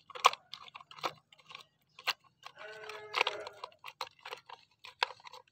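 Wet mud squelching and crackling in irregular clicks as a plastic toy airplane is pushed and rubbed around in a basin of mud.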